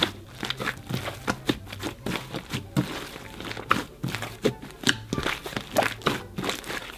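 Hands kneading and squeezing a large mass of slime with shaving cream worked into it, making many short, irregular pops and squelches.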